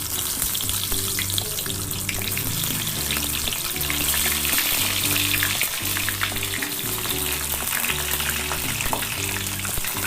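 Small whole eggplants, slit from the stem end, frying in oil in a kadhai: a steady crackling sizzle. Soft background music runs underneath.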